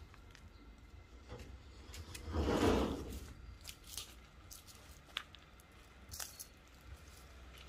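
Custard apple tree leaves and branches rustling as a long pole is worked through them, with one loud rustle about two and a half seconds in and scattered sharp snaps and clicks after it.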